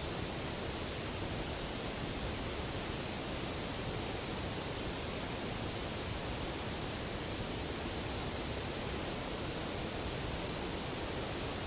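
Steady hiss of recording noise, unchanging throughout, with no knocks, howls or other distinct sounds standing out of it.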